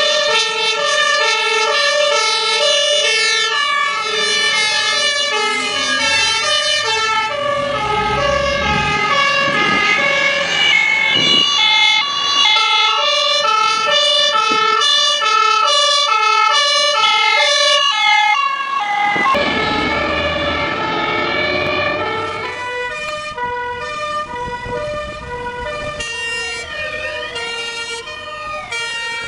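Fire engine two-tone sirens, several overlapping, each stepping back and forth between a high and a low note about every half second, over a low engine rumble. Near the end a wailing siren that rises and falls joins in.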